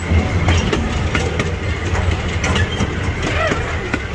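Miniature ride-on train running along its track: a steady low rumble with many irregular clicks and rattles from the wheels and cars.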